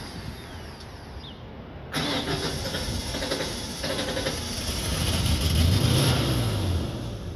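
Ford 4.9L straight-six engine of a 1994 F-150, heard at the tailpipe, idling roughly. It gets suddenly louder about two seconds in, then its speed rises and falls back once: the surging idle of an engine running rich, which was traced to a bad coolant temperature sensor.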